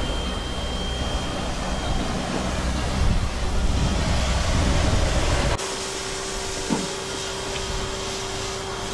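A steady rushing noise, strong in the low end, changes abruptly a little past halfway into a pressure washer running with a steady motor hum, its spray stripping softened old bottom paint off a boat hull.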